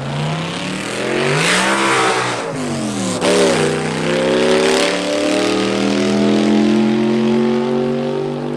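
Drag-racing car engine revving loudly: the pitch climbs and falls twice in the first three seconds or so, then holds high and creeps slowly upward.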